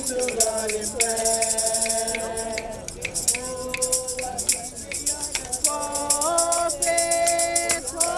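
Group of voices singing a hymn in slow, long-held notes in harmony, with a shaker or tambourine keeping a steady beat.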